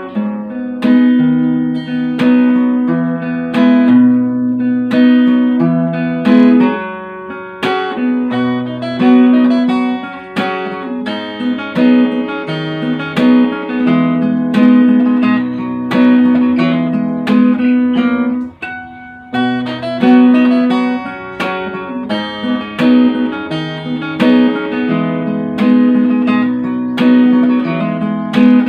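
Acoustic guitar music: a steady run of plucked notes over a repeating bass line.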